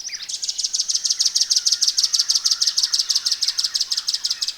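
Velvet-fronted nuthatch calling: a long, rapid run of high, sharp repeated notes, about nine or ten a second.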